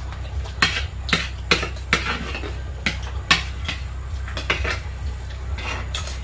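Cutlery clinking and scraping against a dish while eating, a dozen or so short irregular clicks, over a steady low hum.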